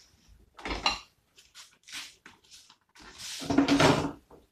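Cooking pots and utensils clattering. There is a knock about a second in, a few light clinks, then a longer, louder clatter near the end.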